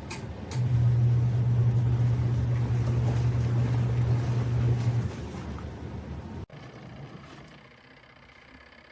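Small twin-tub portable washing machine's motor running with a steady low hum, loud from about half a second in and easing off about five seconds in, then quieter after a sudden break.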